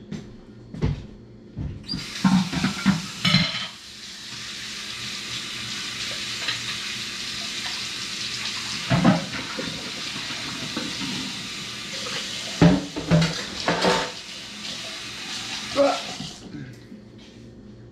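Kitchen tap running into a sink, starting about two seconds in and shutting off about a second before the end, with dishes and cutlery clattering now and then.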